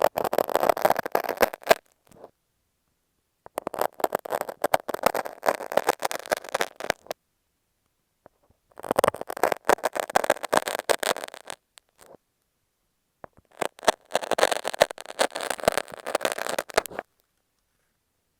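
A utility knife and masking tape worked right against an earphone microphone, giving close-up crackling and scraping. It comes in four stretches of a few seconds each, with short silent pauses between them.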